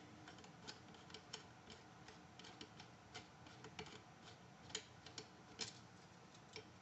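Faint, irregular light clicks and ticks of small metal parts being handled as the shotgun's magazine cap and sling swivel stud are taken off again.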